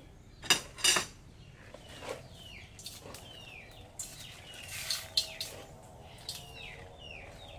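Short falling bird chirps, repeating sparsely. There are two sharp knocks about half a second and a second in, and a brief rustle about four seconds in as water spinach is tipped from a woven basket into the soup pot.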